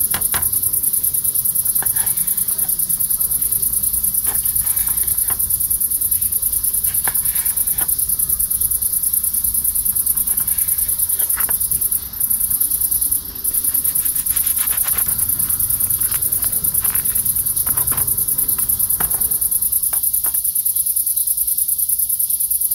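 Crickets chirring: a steady, high-pitched trill that drops out briefly twice around the middle, with scattered faint clicks underneath.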